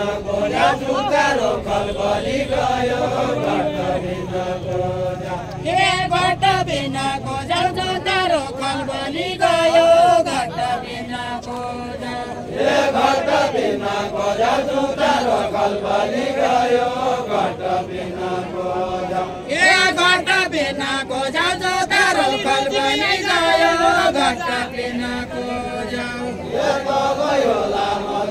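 Unaccompanied group singing of a Far-western Nepali Deuda folk song: many voices chant the verse together in slow, rising and falling phrases.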